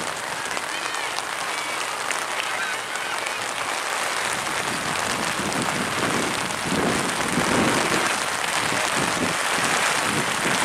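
Heavy rain falling steadily, growing louder about halfway through.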